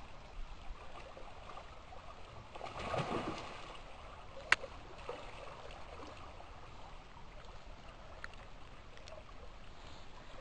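River water running, with a brief splash about three seconds in and a single sharp click about a second and a half later.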